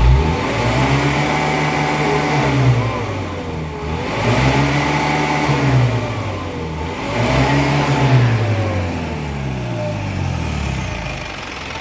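Isuzu Elf truck's diesel engine revved up three times, each time held briefly and let fall back, then settling to idle near the end. This is a test run after valve clearance and injection pump adjustment.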